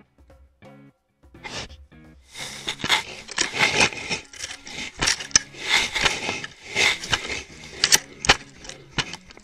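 Asiatic black bear handling a trail camera at close range: dense rustling and scraping of fur against the housing, broken by sharp knocks, starting about two seconds in. Background music plays faintly underneath.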